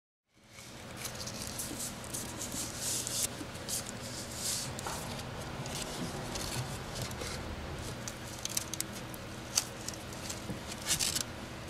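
Hands handling wiring and a plastic wire-loom sleeve under a vehicle's hood: irregular rubbing and rustling with scattered small clicks and taps, more of them near the end, over a faint steady hum.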